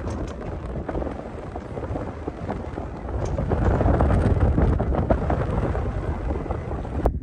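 Strong wind buffeting the microphone: a loud, steady low rumble that swells about halfway through, with a few faint clicks.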